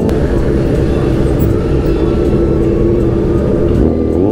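Sport motorcycle's engine and exhaust running steadily while riding, then a short rev rising in pitch near the end.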